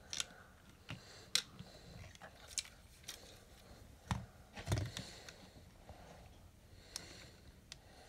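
Plastic LEGO bricks clicking and knocking as a piece is pushed into a hole in a LEGO puzzle box: scattered separate clicks, the loudest a little past halfway.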